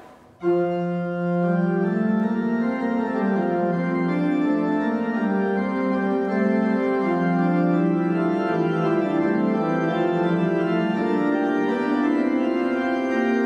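Church organ playing sustained chords as the recessional music closing the Mass, starting abruptly about half a second in.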